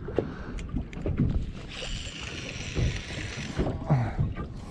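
Small waves slapping and knocking irregularly against a boat's hull, with a hissing rush for about two seconds in the middle.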